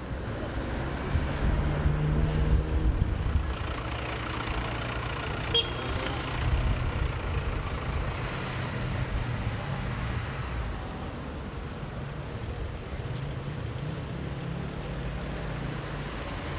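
Street traffic: motor vehicles running and passing, a steady rumble of engines and road noise.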